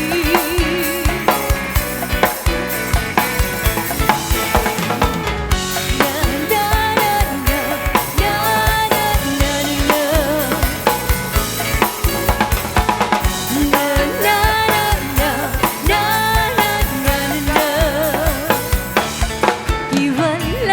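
Live band playing an instrumental passage: a drum kit keeps a steady beat over a bass line, with a melody wavering above.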